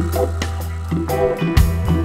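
Music with a steady bass line, plucked notes and a drum beat.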